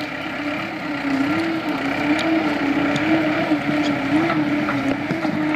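Skid steer engine running as the machine drives up, its pitch wavering slightly up and down with the throttle.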